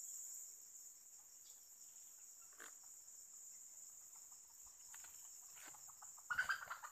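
Steady high-pitched drone of forest insects, with a few faint clicks. Near the end, a short run of clucking calls from a jungle fowl.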